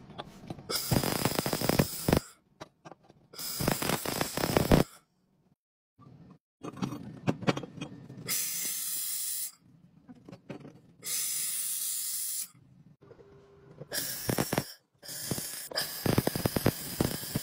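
Handheld laser welding gun welding steel brackets in about six separate bursts, each a hiss with crackling from the weld, one to two seconds long, with short quiet gaps between.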